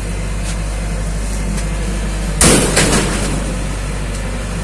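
Crane truck's engine idling steadily while building materials are unloaded, with one loud bang about two and a half seconds in and a smaller knock just after.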